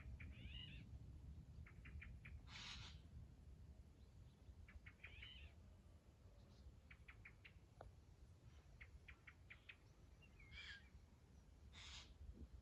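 Faint small birds calling in the open: short runs of three to five quick chirps repeated every couple of seconds, twisting twittering notes, and a few brief harsh rasping bursts, over a low rumble.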